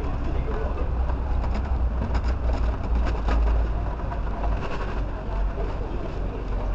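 Steady low rumble of a handheld microphone being jostled, with a cluster of light knocks and rattles in the middle as a metal-framed glass display counter is carried out.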